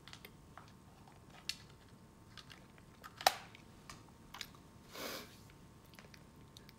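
Scattered faint clicks and taps, with one sharper click about three seconds in and a brief rustle about five seconds in: handling noise from hands and clothing moving close to the microphone.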